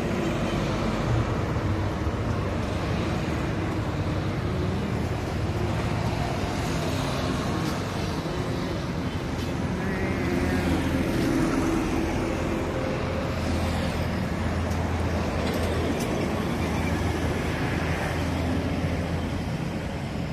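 Steady road traffic, with cars and motorbikes passing on the roadway close by.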